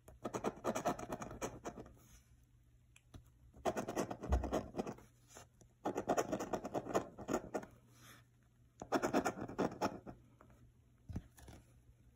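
A coin scraping the scratch-off coating from a paper lottery ticket, in four quick spells of rapid back-and-forth rubbing, each about a second and a half long, with short pauses between them.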